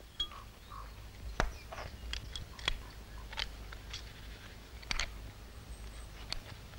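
Faint irregular crunches and clicks of snow being handled and packed around a steel leghold trap as it is set in a snow pit, over a low steady hum.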